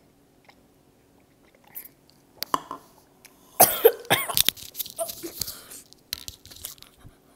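A boy coughing a fit of several harsh coughs starting about three and a half seconds in, with a smaller burst of coughs near the end, brought on by the burning heat of Atomic Fireball cinnamon candies in his mouth.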